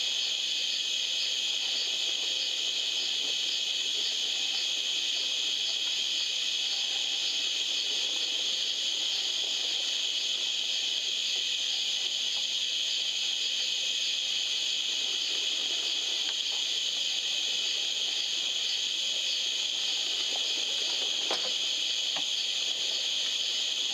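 Steady chorus of night insects, a dense high-pitched hiss that holds unbroken throughout.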